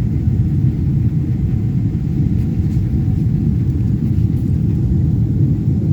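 Steady low rumble of an airliner's engines and airflow heard inside the passenger cabin.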